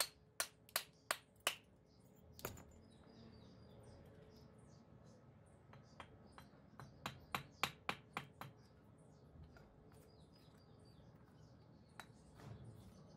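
Hammer striking brick in sharp taps: about six in the first few seconds, a quicker run of about nine around the middle, and one more near the end.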